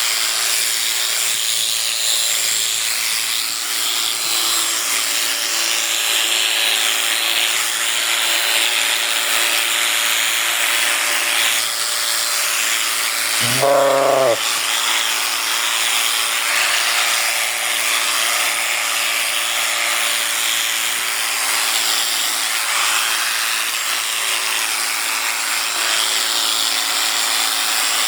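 Electric sheep shears running steadily as they clip through a fleece, a constant buzzing whir. A sheep bleats once, briefly, about halfway through.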